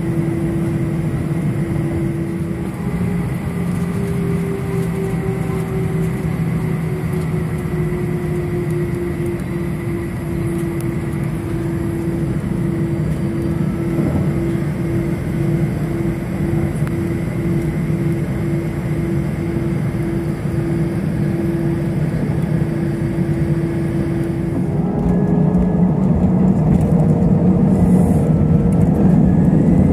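Jet airliner cabin noise while taxiing: the engines run at a steady hum with a low drone. About 25 seconds in they spool up for the takeoff roll, growing louder with a rising whine.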